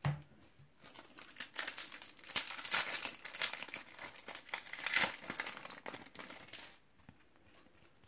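Foil wrapper of a Panini trading-card sachet crinkling and tearing as it is ripped open and the cards pulled out: several seconds of dense crackling that stops abruptly about a second before the end.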